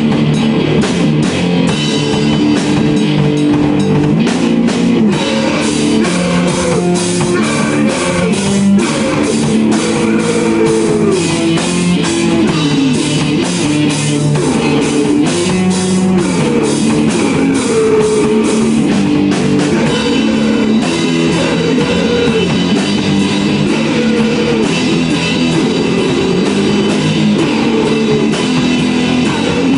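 Live rock jam on electric guitar and drum kit, the drums keeping a steady fast beat under a bending guitar line.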